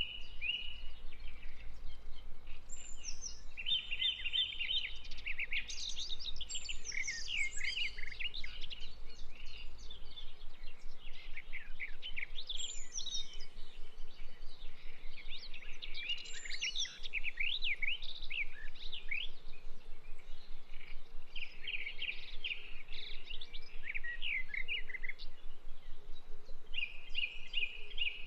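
Birds chirping and singing: many quick, high chirps, sweeps and trills, with short gaps between phrases.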